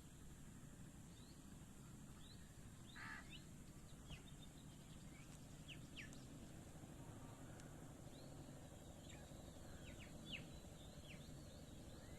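Faint birds chirping: short, high, downward-sliding chirps scattered throughout and coming thicker in the second half, with one harsher, rougher call about 3 s in, over a steady low background hum.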